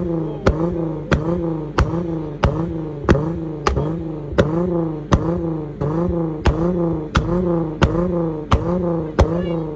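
Volkswagen Jetta's 2.8 VR6 engine and exhaust held at high revs, rising and falling in a steady rhythm about every two-thirds of a second, with a sharp exhaust pop at the start of each cycle, the crackle of unburnt fuel igniting in the exhaust.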